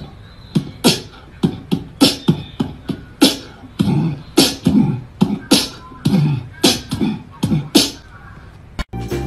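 A fast, irregular run of sharp clicks and thumps, about three a second, like vocal percussion. It stops shortly before the end, when the picture cuts.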